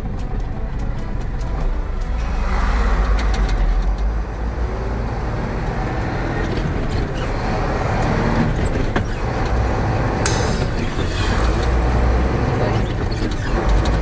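Heavy truck driving, heard from inside its cab: a steady low engine rumble with road noise and scattered rattles, and a brief hiss about ten seconds in.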